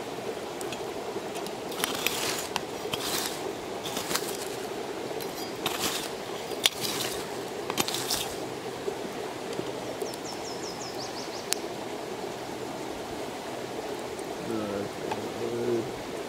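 Steady rushing outdoor noise with a run of crackles and knocks over the first half, a short descending bird trill about ten seconds in, and a brief low warbling sound near the end.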